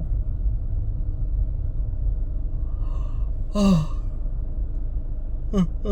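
Steady low rumble of a car's cabin on the move, with a man's short, falling sigh about halfway through, an exasperated sigh at cars cutting in. A brief vocal sound follows near the end.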